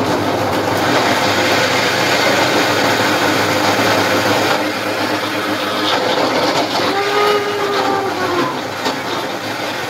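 Electric mixer grinder running at full speed, its steel jar grinding tomatoes into a puree: a loud, steady whirr.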